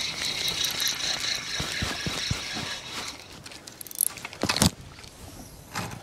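A fishing reel being cranked fast, a steady gear whir for about three seconds. After it come a few sharp knocks, loudest about four and a half seconds in.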